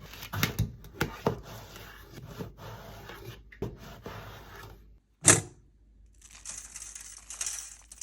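Kitchen food-prep sounds: a run of sharp clicks and knocks of utensils and food being handled, then one loud knock about five seconds in. A steady high hiss follows for about two seconds near the end.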